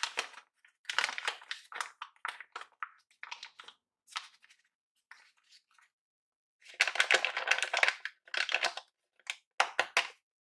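A hand-coloured paper blind bag crinkling and rustling in irregular bursts as fingers squeeze and rub it. The longest, loudest rustle comes about two-thirds of the way in, followed by a few short crinkles.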